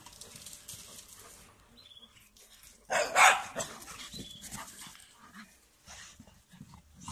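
Dogs playing: one dog gives a loud bark about three seconds in, with quieter scuffling and dog noises around it.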